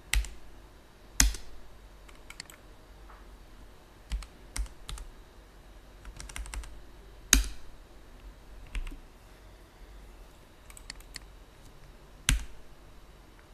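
Computer keyboard keystrokes and mouse clicks: scattered single sharp taps and a few quick runs of keystrokes, with the loudest clicks about a second in, around seven seconds in, and near the end.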